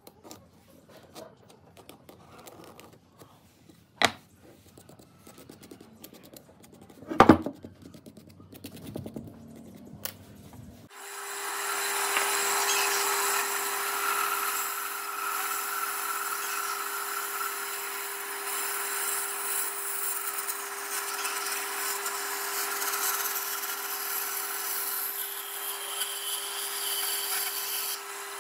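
A few clicks and two sharp knocks as a wooden block is handled on a workbench, then, about a third of the way in, a bandsaw starts up suddenly with a steady hum, its blade cutting along a curve through a thick wooden block.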